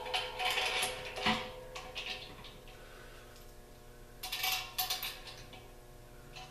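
Small metal hardware clinking and rattling: an axle bolt, washer and nut being handled while the compressor's wheel is refitted. There is a sharp knock about a second in, and another short run of clinks near the middle.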